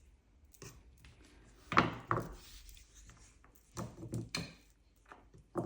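Light knocks and thuds of tools and hands on a work surface while modelling paste is trimmed and handled, in three small clusters: about two seconds in, around four seconds in, and a louder one at the end.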